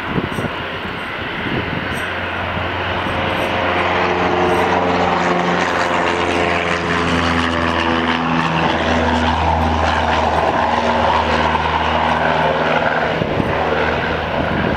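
Boeing 737-300's CFM56 turbofan jet engines running as the airliner rolls after landing: a steady low hum and rushing noise that grows louder over the first few seconds, with an engine whine that falls in pitch through the middle.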